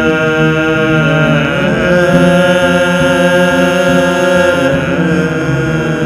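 Music of chanting voices holding long, steady notes, the pitch sliding to a new note about one and a half seconds in and again near the five-second mark.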